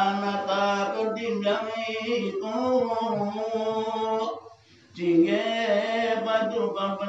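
A man singing solo in a slow, chant-like melody, holding long notes at a fairly steady pitch, with one short pause for breath a little past the middle.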